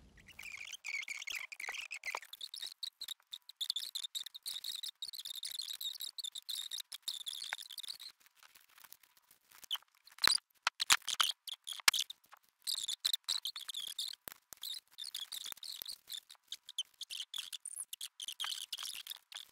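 A pen scratching on paper in short, uneven strokes: handwriting entries into a notebook. There is a pause with a few light clicks about ten seconds in, then the writing resumes.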